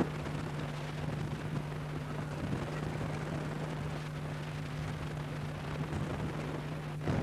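Steady hiss over an even low hum, with a sharp click at the very start.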